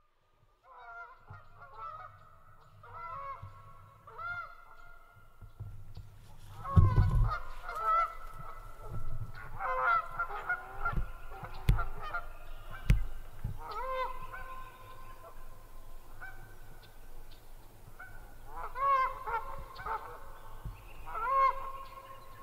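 Geese honking repeatedly, with calls coming in clusters and overlapping as if from several birds. A few dull low thumps fall in the middle.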